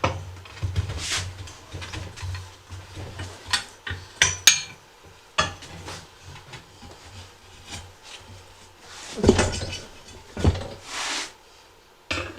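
Metal tire tools clinking, knocking and scraping against a steel wheel rim as an ATV tire's bead is pried off on a manual tire changer. The knocks are irregular, the sharpest about four seconds in, with a few longer scrapes near the end.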